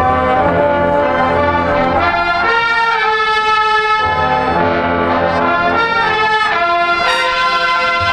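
High school marching band's brass section playing held chords that change every second or two, over a low drum beat.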